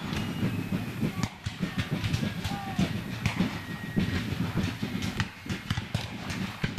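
Harnessed artillery horses moving in place: an irregular run of clinks and knocks from their tack and hooves over a steady low rumble.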